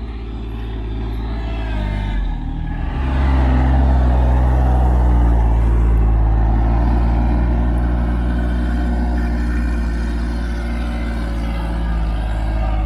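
RK 24 subcompact tractor's diesel engine running steadily while it carries a loaded bucket of topsoil, getting louder about three seconds in.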